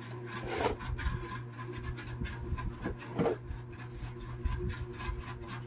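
Cardboard box and plastic wrapping being handled as a solar light is taken out: irregular rustling, crinkling and scraping, over a steady low hum.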